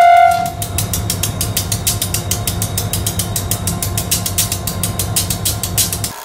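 EMD diesel-electric locomotive idling at a standstill: a steady low rumble with a fast, even clatter of about seven beats a second. It cuts off suddenly near the end.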